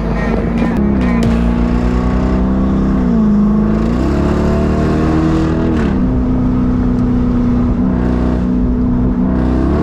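Car engine running with a steady drone whose pitch drops about a second in, climbs back a few seconds later, drops again past the middle and rises near the end.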